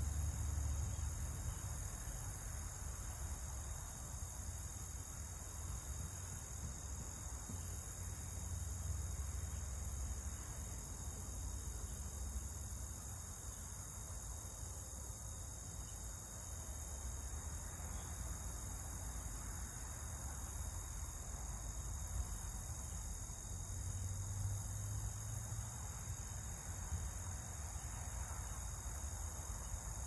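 Crickets trilling in a steady, continuous high-pitched chorus, with a low rumble underneath.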